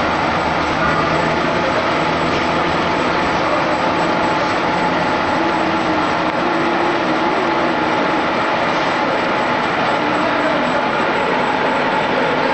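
Milling machine running steadily as it cuts a new gear, a continuous machining noise with a few faint steady tones in it.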